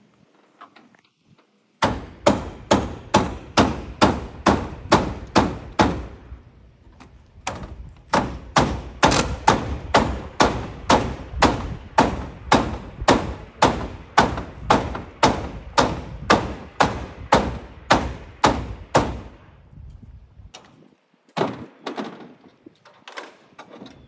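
Hammer blows in a steady rhythm of about three a second, in two long runs with a short break about six seconds in, then a few scattered blows near the end.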